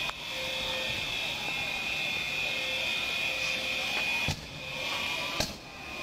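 Electronic alarms sounding, several steady high-pitched tones ringing together without a break. Two sharp clicks come about four and five and a half seconds in.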